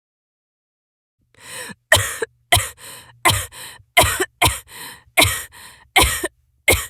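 A woman's acted coughing fit: about eight sharp coughs, roughly one every 0.7 seconds with breaths between, starting about a second in.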